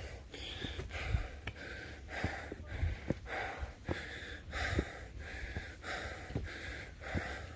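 A hiker panting hard while climbing steps, fast and even at about two breaths a second, with footfalls thudding about once a second.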